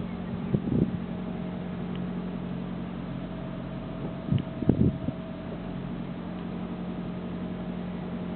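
Steady low hum of a car idling, heard from inside the cabin, with two short louder bumps about half a second and about four and a half seconds in.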